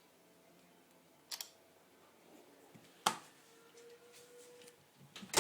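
Sharp crackling pops from an iPhone 4 arcing and sparking inside a running microwave oven: a quick double pop about a second in, a sharp crack about three seconds in, and the loudest crack near the end.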